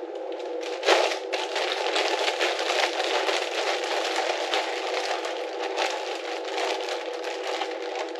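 Walleye pieces being handled and tossed in hot sauce: dense, irregular crackling and rustling, with a sharp knock about a second in.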